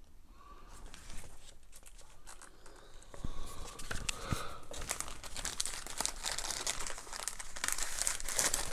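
Paper instruction leaflet rustling and crinkling as it is handled and folded. The crackle is sparse at first and grows denser and louder from about three seconds in.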